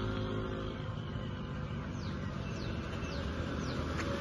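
A bird gives four short calls, each sliding downward, about half a second apart, over a low steady rumble.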